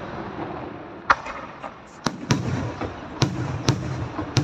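Aerial firework shells bursting overhead: about six sharp bangs at uneven intervals, over a continuous rumble of the display.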